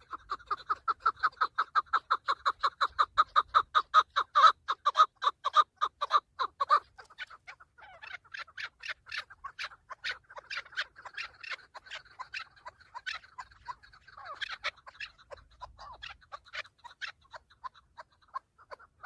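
Chukar partridge calling: a fast, even run of clucking chuk notes, about four to five a second, loud for about seven seconds, then softer and more ragged calls to the end.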